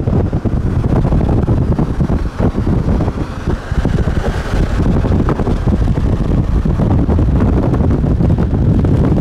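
Strong wind buffeting the microphone outdoors: a loud, gusty low rumble that rises and falls, with a brief rush of higher hiss about halfway through.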